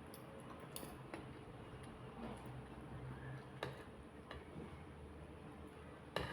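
Quiet eating sounds: a few light clicks of a utensil against a plate or bowl, with a sharper click near the end.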